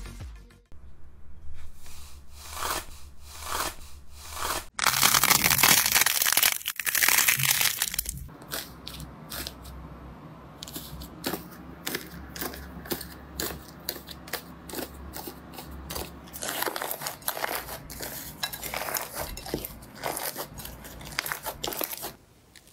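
Slime being squeezed, poked and pulled, giving rapid crunchy crackles, clicks and sticky tearing sounds. About five seconds in comes a louder stretch of dense crackling lasting about three seconds.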